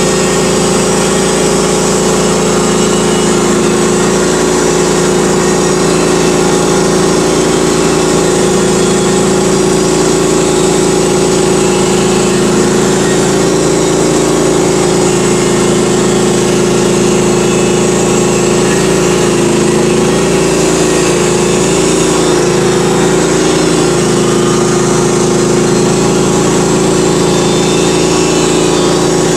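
Engine of a Norwood HD38 portable band sawmill running steadily at speed as the band blade saws through an ash log, a loud, even hum with no let-up.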